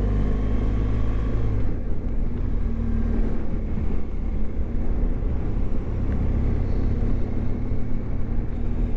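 Motorcycle engine running steadily on the move through town traffic, with road and wind noise; its pitch climbs a little in the first second or so as the bike picks up speed.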